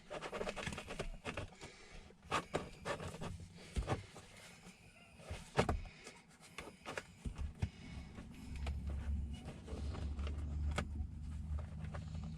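Sharp irregular clicks and knocks of plastic interior trim being pried and worked loose at its retaining clips with a small pry tool. A low steady rumble joins in past the middle.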